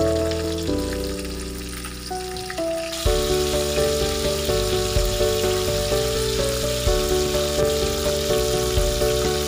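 Whole tilapia frying in hot oil in a wok, a steady sizzle that gets louder about three seconds in, under background music with a steady beat.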